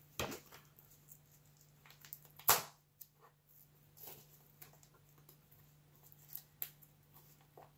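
Plastic shrink wrap being picked at and pulled off a vinyl LP sleeve: scattered faint crinkles and clicks, with one loud, sharp rustle about two and a half seconds in.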